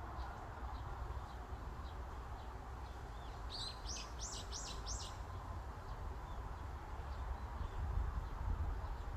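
Forest ambience of a steady breeze with low wind rumble, and a small bird giving a quick run of about five high chirps about three and a half seconds in. Fainter chirps are scattered through it, and the wind rumbles louder near the end.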